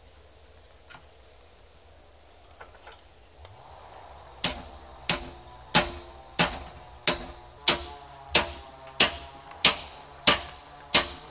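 Hammer striking metal on an anvil at a forge, a steady run of blows about three every two seconds, each with a short metallic ring. The blows begin about four seconds in, after a quiet stretch with a few faint clicks.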